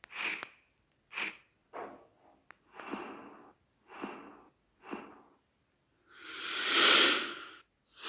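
Stock InShot transition sound effects previewed one after another: six short whooshes about a second apart, then a longer, louder one that swells and fades near the end.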